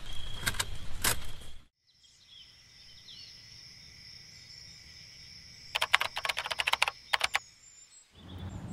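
A noisy stretch with a few clicks that cuts off suddenly about a second and a half in, then faint high steady tones with small chirp-like calls, and a quick run of sharp clicks about six seconds in.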